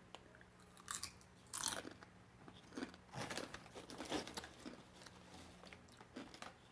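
Someone chewing crunchy root-vegetable chips, an irregular series of crisp crunches.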